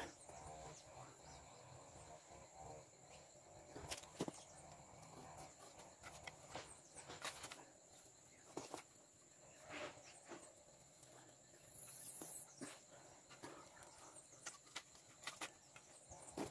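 Rope being pulled and knotted around bamboo poles: soft rustles and scattered light knocks of the rope and hands against the bamboo. A steady high insect trill runs underneath.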